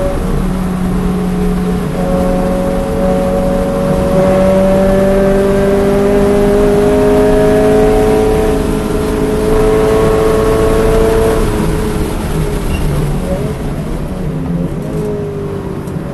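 Scion FR-S's flat-four engine heard from inside the cabin, pulling hard in gear with its note rising steadily on a straight. About eleven seconds in the driver lifts off the throttle, the steady note breaks off, and the engine falls back as the car slows for a corner.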